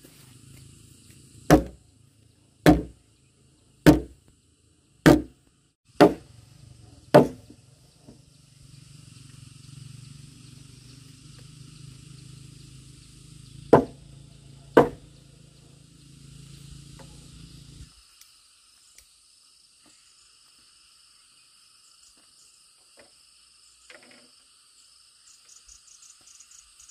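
Wood struck hard with a heavy tool: six sharp blows at about one a second, then two more a little later. Insects chirr steadily in the background, and a low steady hum stops about two-thirds of the way through.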